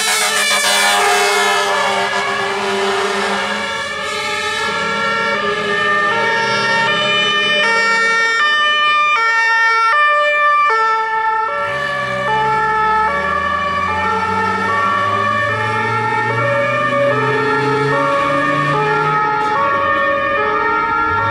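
German fire engines' two-tone sirens (Martinshorn) alternating between two pitches as a convoy drives past, several sirens overlapping at first. A vehicle engine is heard running beneath them in the second half.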